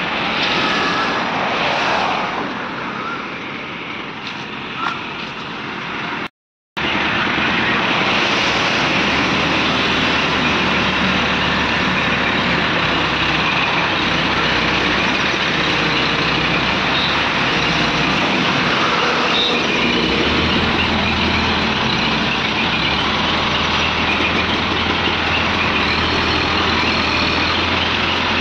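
Diesel engines of several ACE hydra pick-and-carry cranes running steadily under load as they lift a tanker. The sound cuts out completely for a moment about six seconds in, then comes back louder and steadier.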